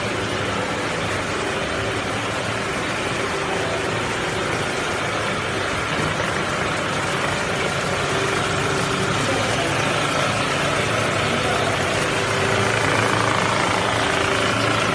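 Hard candy making machine running steadily: an even mechanical hum with a few faint held tones.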